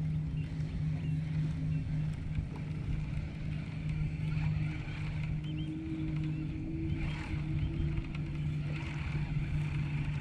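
Electric trolling motor on a bass boat humming steadily, its pitch shifting slightly partway through, over a low rumble.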